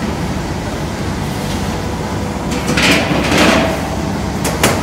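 A metal baking tray is slid into a commercial deck oven: two scraping slides, a little before three seconds in and around three and a half seconds, then a sharp metal clank near the end. A steady drone of bakery equipment runs underneath.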